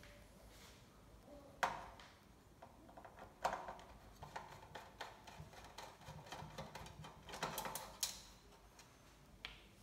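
Clicks, taps and knocks of parts and hand tools being handled while an LCD monitor's metal inner casing is opened. Sharp knocks come about a second and a half in and again about three and a half seconds in, then a busy run of small clicks with a louder knock near the end.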